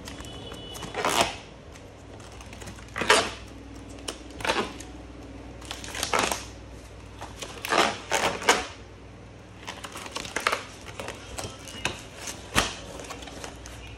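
Plastic sheet-protector pages of a ring binder being turned one after another, each turn a short rustling swish, about eight in all.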